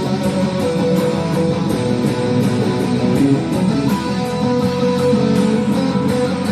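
Guitar music, with notes held and ringing at an even, steady level.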